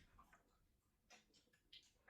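Near silence: room tone with a few faint scattered ticks.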